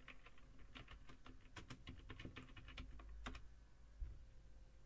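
Faint typing on a computer keyboard: a quick, uneven run of about a dozen key clicks over some three seconds as a short terminal command is typed and entered. A single soft, dull thump follows about four seconds in.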